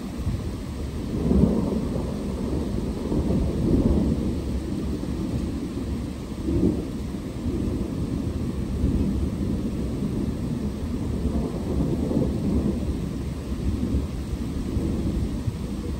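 Thunder rumbling continuously in a thunderstorm, swelling and easing several times, over steady rain.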